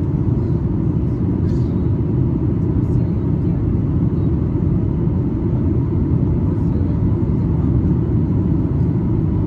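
Steady low cabin rumble of a Boeing 737-8 MAX on approach: CFM LEAP-1B engine noise and airflow over the fuselage, heard inside the cabin from a window seat over the wing.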